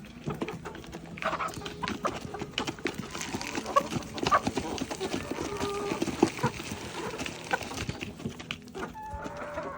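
Farm animals calling, with scattered short knocks and scuffles.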